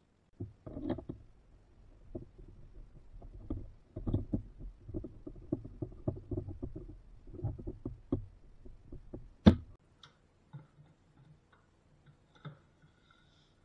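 Handling noise from a metal combination plane being moved and set on a cast-iron table saw top: a run of light, irregular knocks and clatters, then one sharp click about nine and a half seconds in, followed by only faint ticks.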